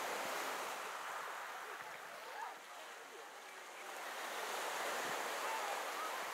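Small waves washing against the shore, the noise swelling and easing twice, with faint distant voices.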